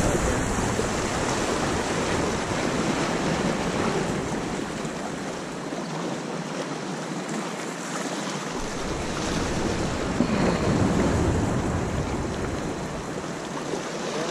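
Ocean surf washing against jetty rocks, with wind rumbling on the microphone that comes and goes.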